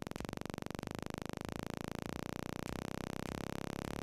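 Square-wave oscillator from a computer synthesis patch, its clicks coming so fast that they run together into a low buzzing tone. The rate steps up about every half second, so the buzz rises in pitch in small jumps.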